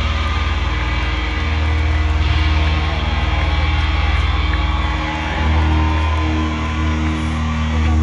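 Live rock band playing loud, distorted electric guitars with drums. About five seconds in, the dense playing gives way to long held notes ringing on.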